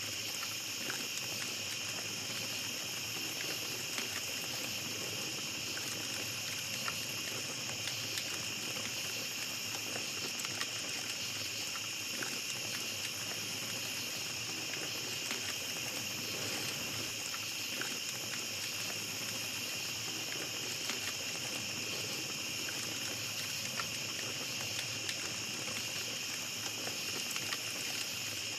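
Night insects, crickets among them, trilling in a steady high chorus, over a small campfire crackling with scattered soft pops and ticks.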